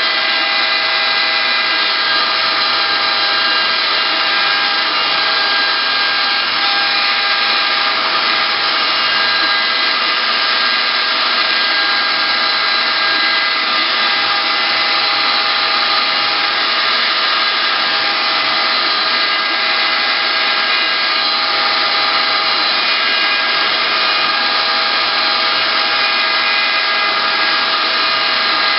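CNC wood router running steadily: the spindle motor's high whine, several steady tones over a loud hiss, with no change in pitch or level.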